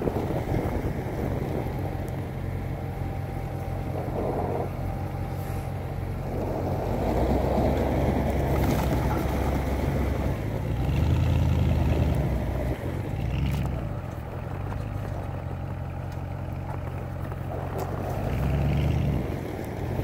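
Farm tractor and pickup truck engines running as the tractor tows the truck, stuck in deep snow, out on a strap; the engine sound swells louder three times, about a third of the way in, near the middle and near the end.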